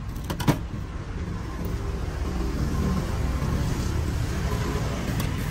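Scissors snipping green onion stalks, a couple of sharp snips near the start, over steady traffic rumble from the street that grows louder partway through.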